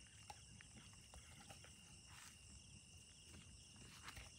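Near silence with faint, steady cricket chirring and a few faint ticks.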